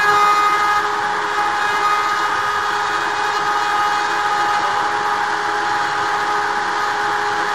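Hobby-class CNC router milling MDF: the spindle's steady whine over the continuous hiss of the bit cutting.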